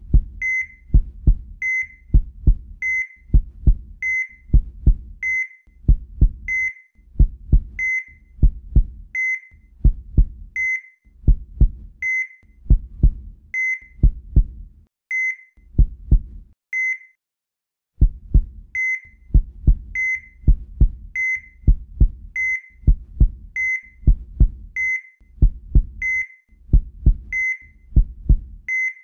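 Heartbeat soundtrack: low double thumps about once a second, each with a short high electronic beep like a hospital heart monitor. The beats stop for about a second a little past halfway, then resume at the same pace.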